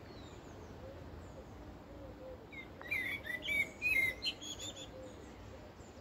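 Bird song: a quick burst of rapid high chirps and trills about three seconds in, lasting about two seconds, over fainter low whistled notes that recur in the background.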